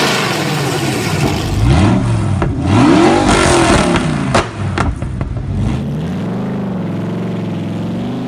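An 8-litre Dodge Viper V10 engine in a motorcycle being revved in two sharp blips, pitch rising and falling each time, with a few sharp cracks about four and a half seconds in, then settling to a steadier, gently wavering running note from about six seconds in.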